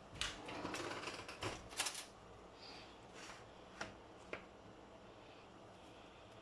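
Light kitchen clatter as banga spices go into the pot: a run of quick clicks and rattles for about two seconds, then two single clicks.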